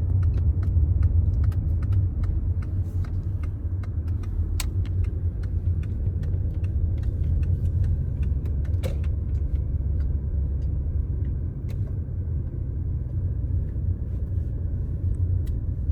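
Steady low rumble of a car on the move, with scattered small clicks and rattles.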